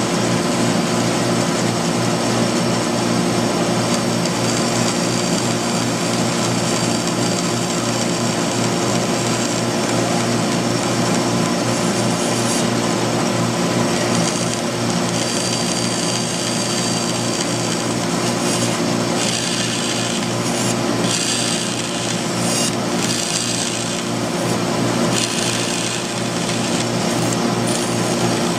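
Bandsaw running with a steady motor hum while its narrow blade cuts a row of short notches into a thin wooden template strip. In the second half the cuts come as separate short bursts of higher-pitched rasping over the hum.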